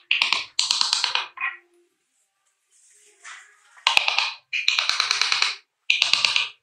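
Hands rubbing and scraping on a wood carving blank and its paper template, in rapid scratchy strokes. The strokes come in short bursts with a pause of about two seconds in the middle.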